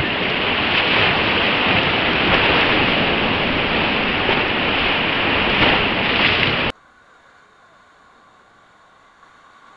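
Whitewater rapids rushing loudly and steadily around an inflatable raft. About two-thirds of the way through it cuts off abruptly to a much fainter, muffled rush of water.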